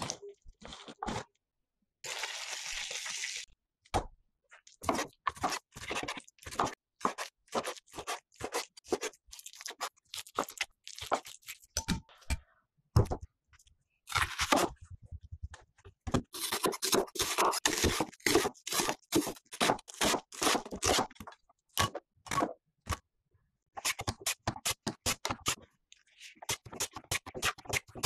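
Raw potato being sliced thin on a handheld mandoline slicer: runs of quick, crisp scraping strokes across the blade, several a second, coming in bursts with short pauses between them.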